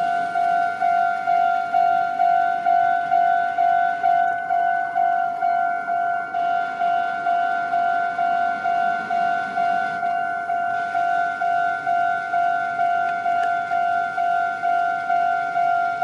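Japanese railway level-crossing warning bell ringing: an electronic 'kan-kan' tone repeating evenly about two and a half times a second, the signal that a train is coming and the crossing is closed.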